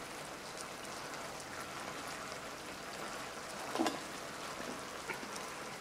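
Steady faint sizzling and crackling from a ration tin of food heating over a burning solid-fuel tablet.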